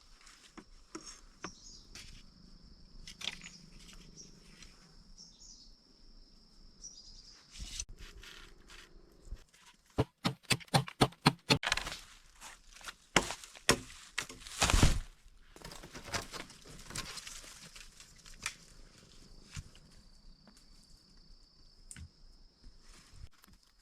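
Rustling and tearing of plant material. About ten seconds in comes a fast run of sharp knocks, and a louder crunch follows near fifteen seconds. A steady, high-pitched insect drone runs behind it at the start and again near the end.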